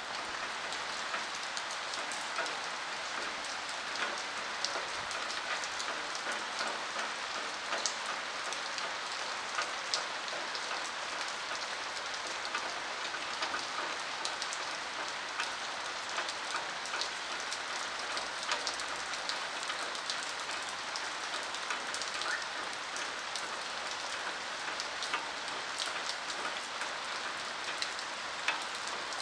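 Steady rain falling: an even hiss with many sharp drop ticks scattered through it.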